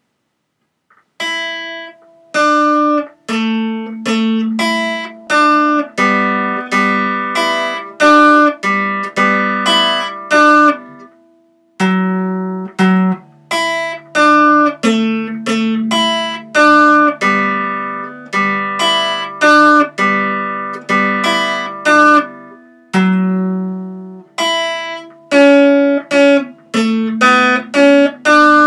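Acoustic guitar with a capo, picked in a steady pattern of single notes and chords that ring and fade, with a brief pause about eleven seconds in.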